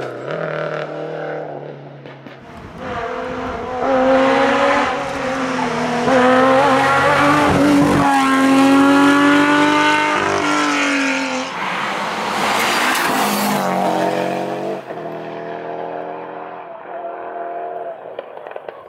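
Historic rally car approaching and passing at full throttle, its engine note climbing and then dropping back sharply at several gear changes, loudest in the middle, then pulling away and fading.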